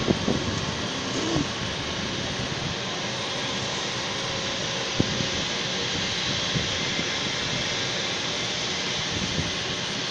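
Jet airliner engines running on the apron: a steady hiss with a faint whine.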